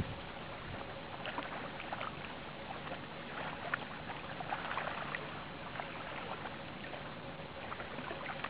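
Shallow seawater lapping at the shoreline: a steady wash of small waves with scattered light splashes and drips in the water.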